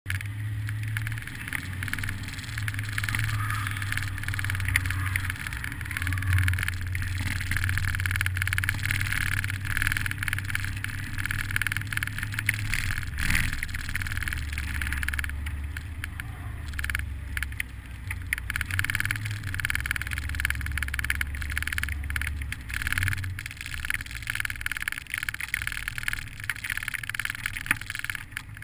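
A vehicle driving, its engine and road noise steady. The engine note shifts lower about halfway through and back up near the end as the speed changes.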